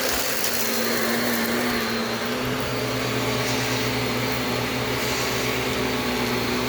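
Shark vacuum cleaner running steadily: a constant motor hum and whine with airflow noise, picking up from the floor while its suction release valve is being tried.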